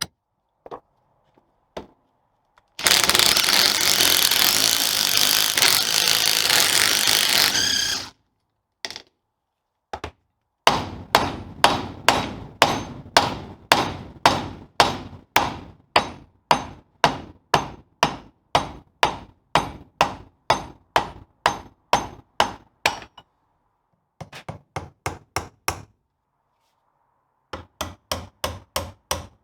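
A hammer striking metal again and again, about two blows a second in a long even run, then two shorter runs of faster blows near the end. Before the blows, a loud steady hissing noise lasts about five seconds.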